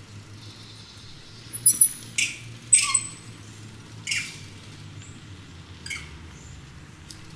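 A series of short, sharp, high-pitched animal chirps or squeaks, loudest and closest together about two to three seconds in, then single ones near four and six seconds, over a low steady hum.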